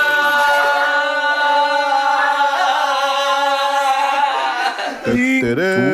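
A man's voice holding one long, loud sung "aaaa" at a steady pitch for about four and a half seconds, the drawn-out end of a shouted catchphrase; near the end it breaks off and lower voices start up, wavering in pitch.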